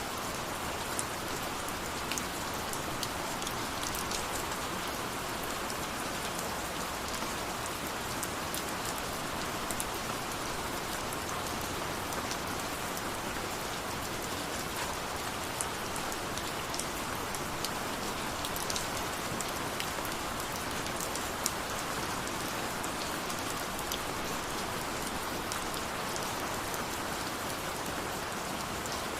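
Steady rain falling, an even hiss with many fine drop ticks scattered through it.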